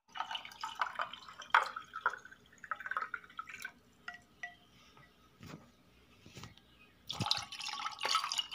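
Liquid poured into stemmed glasses holding ice, splashing, with sharp clinks and short rings of ice and glass, growing into a steadier splashing pour near the end.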